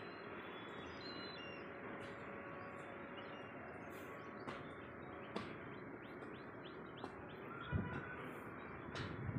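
Faint bird chirps over a steady background hiss, with a soft low thump about eight seconds in.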